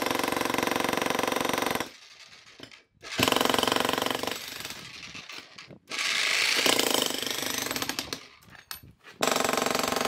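VEVOR 2200 W electric demolition jackhammer hammering its chisel into a concrete slab in about four bursts of fast, even blows, stopping briefly between them.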